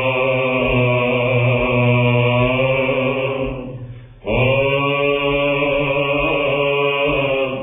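Two Athonite monks chanting a Byzantine hymn in plagal fourth mode: a slow, melismatic melody over a steady held low drone (ison). The voices fade out a little past halfway, pause for breath and come back in. It is an old, narrow-band radio recording.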